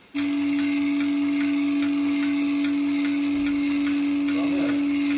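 Portable bucket milking machine switched on, its vacuum pump motor starting at once into a loud steady hum, with a regular ticking about twice a second from the pulsator.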